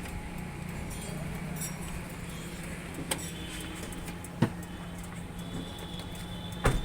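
Car workshop sounds: a steady low hum with three sharp metallic clicks or knocks, a little under halfway, past the middle and near the end, the last one the loudest.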